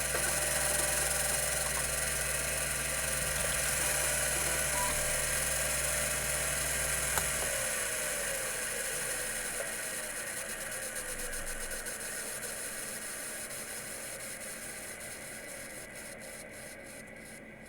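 Computer Memories Inc. CM-5412 10 MB full-height 5.25-inch hard drive running with a steady whine and hum, then a sharp click about seven seconds in. After it the low hum stops and the drive spins down, its whine falling in pitch and fading.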